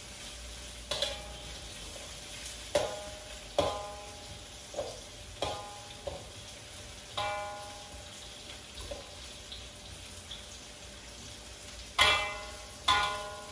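Onions and garlic frying in oil in a metal wok, a steady sizzle, while a metal spatula stirs them and repeatedly knocks against the wok, each knock ringing briefly. The two loudest knocks come near the end.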